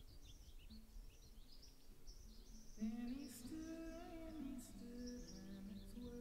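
Soft ambient background music with long held notes that change pitch about three seconds in, with small birds chirping in short high calls throughout.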